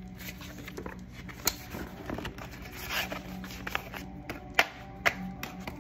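Handling noise: scattered light clicks, taps and scrapes, with the sharpest tap about four and a half seconds in, over a faint steady room hum.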